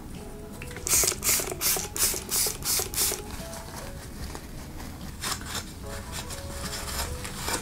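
Paper towel damp with alcohol rubbing on a small clear plastic cosmetic pot: a run of about eight quick, scratchy wiping strokes, then a single stroke a few seconds later.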